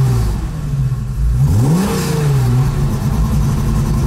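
BMW M30B35 straight-six on individual throttle bodies and a full exhaust, heard from inside the car, running at idle; about a second and a half in the revs rise briefly and fall back, then it settles to a steady idle.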